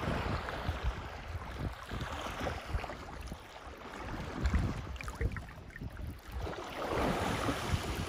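Water sloshing and lapping around a swimming African elephant, building to heavier splashing near the end as it surges up out of the water. Wind buffets the microphone.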